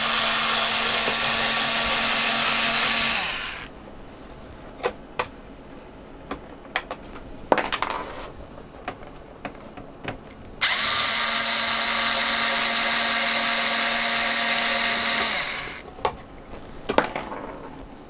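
Cordless electric screwdriver running steadily in two spells, the first for about three seconds and the second for about five seconds, starting about ten seconds in, as it turns out the screws of a cassette recorder's metal shield. Between and after the spells come light clicks and knocks of screws and metal parts being handled.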